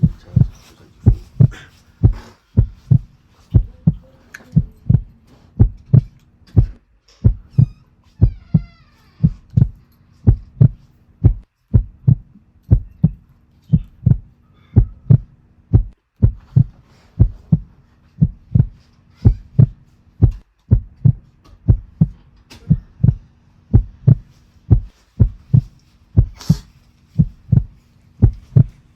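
Heartbeat sound effect: loud, deep thumps in a steady rhythm, about two a second, over a faint steady hum.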